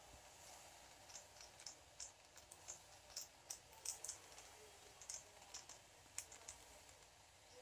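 Faint, irregular crackling clicks as Eno fruit salt is poured from its sachet into a pot of hot water.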